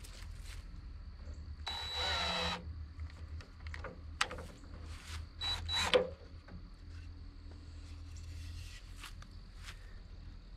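A power tool whirs briefly for just under a second, about two seconds in, followed by a few sharp knocks around four and six seconds in, over a steady low hum.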